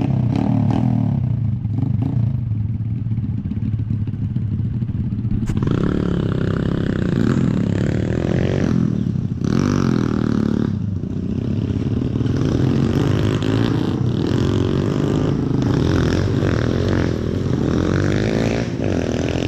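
Enduro motorcycle engines running and revving, with the pitch rising and falling; the engines get louder about five seconds in.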